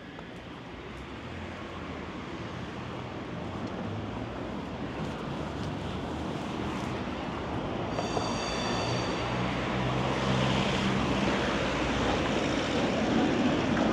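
A tram approaching along the street, its running hum growing steadily louder, with a brief high-pitched squeal about eight seconds in.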